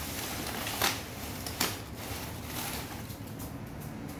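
Crumpled brown packing paper rustling and crinkling as it is stirred, with two sharp crackles in the first two seconds.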